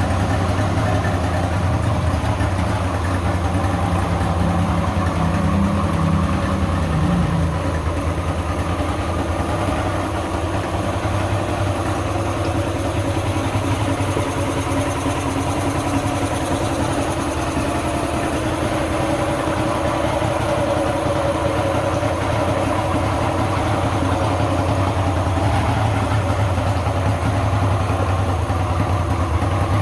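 Yamaha 70 hp outboard motor idling steadily.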